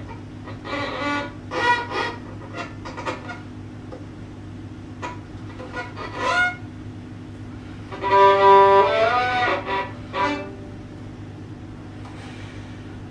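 Violin played with the bow: a string of short notes, a pause, then a louder held phrase with a sliding pitch about eight seconds in, after which the playing stops and only a steady low hum remains.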